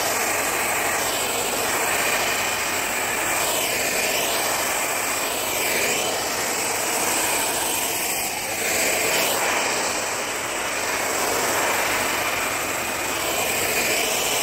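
Hand-held hair dryer blowing steadily during a blow-dry, a loud rush of air whose tone sweeps and shifts as the dryer is moved around the head.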